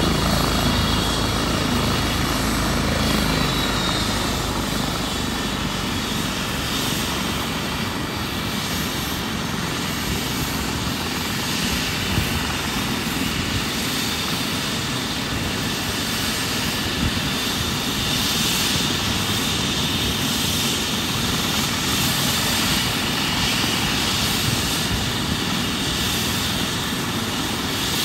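Airbus EC135 twin-turbine helicopter running on the ground with its main rotor turning: a steady engine and rotor noise with a faint high whine over it.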